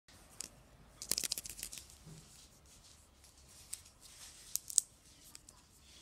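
Plastic foil wrapper of a Kinder Joy egg crinkling and crackling in the hands, with a burst of sharp crackles about a second in and a couple more near the end.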